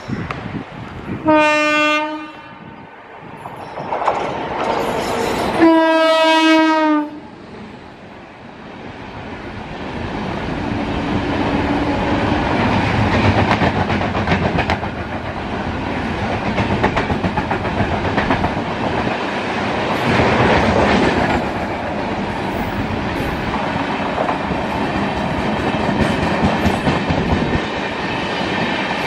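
Electric locomotive horn sounding twice, a short blast then a longer one about four seconds later, followed by a passenger express passing at speed with a continuous clickety-clack of wheels over the rail joints.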